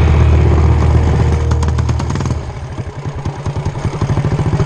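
Mini bike engine running steadily, then about two seconds in the revs drop off to a slower, pulsing chug as the throttle is eased.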